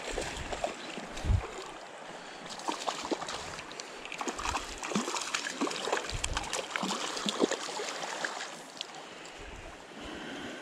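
Small stream running steadily, with scattered splashes and a few low thumps.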